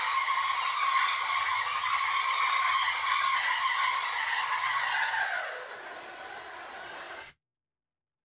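Spark-gap Tesla coil, powered by a ZVS driver, firing loud buzzing arcs into the air. About five seconds in, the pitch slides down and the sound weakens as the power comes off. It stops abruptly a little after seven seconds.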